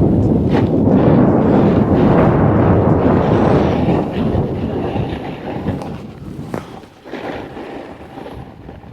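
Snowboard edge scraping and chattering over icy, hard-packed snow, a loud rough rumble. It eases to a quieter, uneven scrape after about four seconds.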